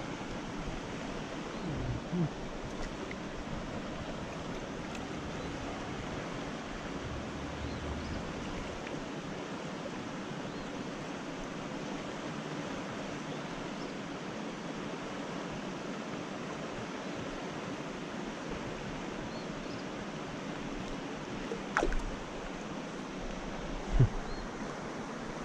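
Shallow creek water running steadily over rocks. A few short knocks stand out, the loudest a little before the end.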